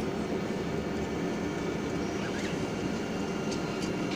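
Steady low rumble of engine and airflow noise inside the economy cabin of an Airbus A320-216 with CFM56 engines, on the ground after touchdown at Manila.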